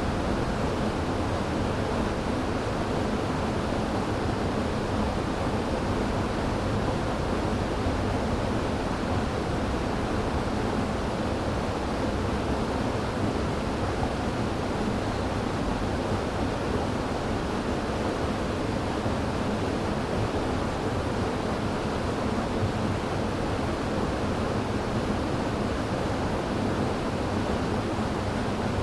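River water rushing, a steady, even noise that does not change.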